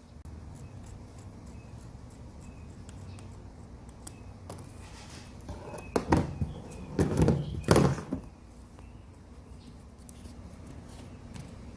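Handling noises as a strip of KeelEazy tape is cut and handled against a plastic kayak: a short cluster of knocks and rustles about six to eight seconds in, over a low steady hum.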